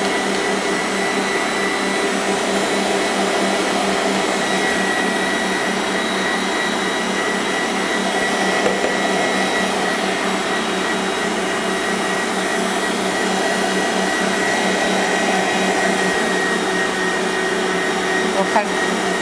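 Electric stand mixer running steadily at speed, beating a thick shortening-and-margarine icing as powdered sugar and lemon juice are added, with a steady motor whine.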